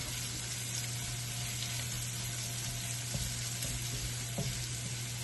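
Garlic and chopped onions sautéing in hot oil in a pan: a steady sizzle, with a steady low hum underneath and a couple of faint knocks in the second half.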